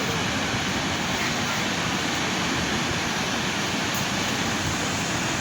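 Steady roar of sea surf, with gusts of wind on the microphone.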